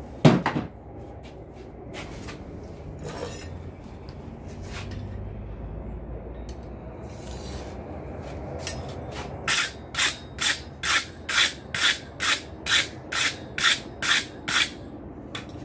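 A single heavy hammer blow on hot steel at the anvil, ringing briefly, then a run of about a dozen even scraping strokes across the steel, roughly two a second.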